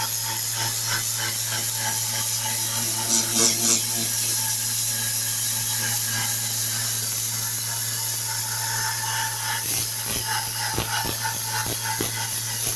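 Tornador Z-020 Black air-powered cleaning gun blowing a steady hiss of compressed air and spray mist, with a light scattered ticking over a constant low hum.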